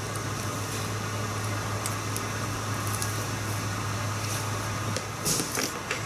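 Steady low room hum under faint crinkling and scraping as the paper backing liner is peeled off an adhesive graphic overlay sheet and the sheet is pressed down with a squeegee. Two louder brief handling knocks come about five seconds in.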